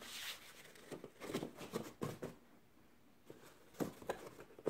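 Soft scraping and brushing of foam strips being laid into a cardboard storage box's tray compartments and pressed down by hand, with two light taps near the end.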